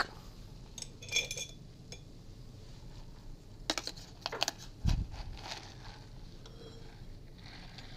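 Metal cocktail shaker being handled and opened for straining: a few scattered metallic clinks and taps, one ringing briefly about a second in, and a dull knock about five seconds in.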